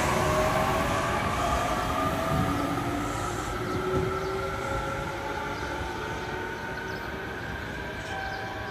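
JR Kyushu Series 815 electric train running on the rails, with a rumble of wheels on track and a motor whine that slowly rises in pitch as it gathers speed. The sound grows gradually fainter as the train moves away.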